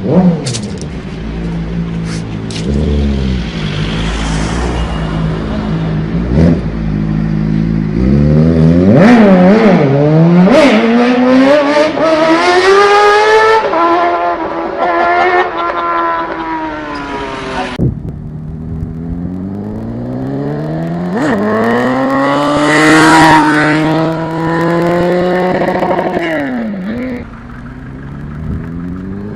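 Motorcycle engines revving hard, their pitch climbing and falling again and again as the throttle is opened and shut. About two-thirds of the way through the sound cuts suddenly to a second bike revving in the same way.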